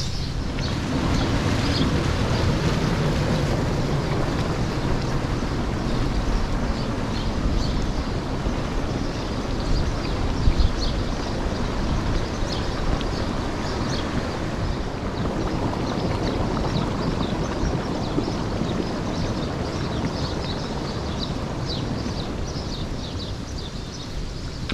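Volcanic hot spring boiling hard: a steady, loud bubbling and churning of water with steam venting from the vent.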